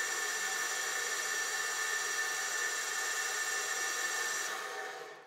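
Metal lathe running, its chuck spinning a metal shaft with a turning tool at the work: a steady whine with hiss. The highest part of the whine falls away about four and a half seconds in, and the sound cuts off suddenly at the end.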